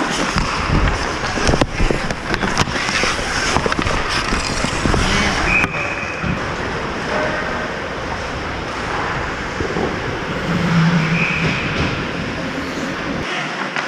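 Ice hockey play heard close up: skates scraping across the ice in a steady rush, with sharp clacks of sticks and puck.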